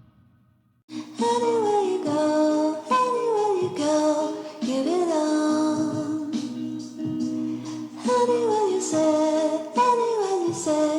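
Background music: a song with singing. It starts about a second in, after a moment of near silence.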